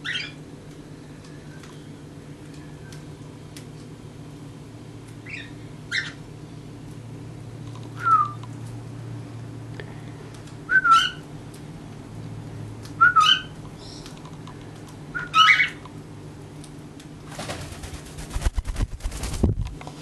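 A pet parrot giving short whistled chirping calls, about seven of them, each a fraction of a second long and spaced a few seconds apart. Near the end, about two seconds of rumbling and bumping from the camera being moved.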